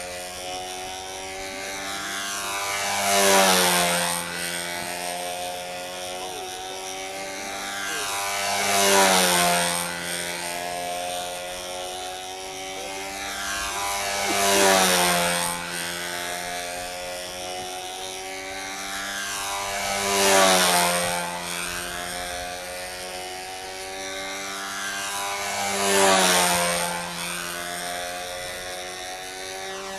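Control-line stunt model airplane's engine running steadily as the plane circles the pilot on its lines, swelling and dropping in pitch each time it passes close, about every five and a half seconds, five passes in all.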